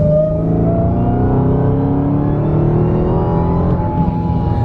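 2020 Dodge Charger SRT Hellcat's supercharged V8 accelerating hard, heard from inside the cabin with the windows up. The engine note and the supercharger's high whine rise steadily in pitch, the whine made louder by a newly fitted cold air intake.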